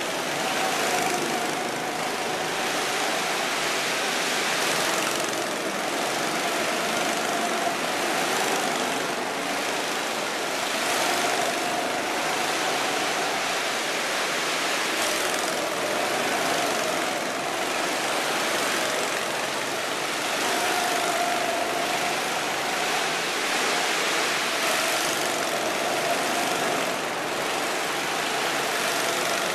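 Go-kart engines running as several karts lap the track, a steady drone that swells and fades every few seconds as karts pass.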